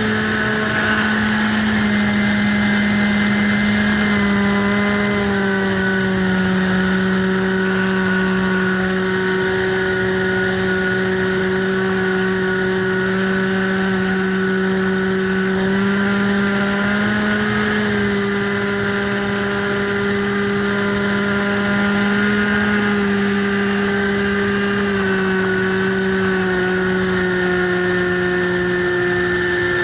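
Motor and propeller of a radio-controlled FPV plane running steadily in flight, a constant buzzing hum whose pitch dips and rises a few times.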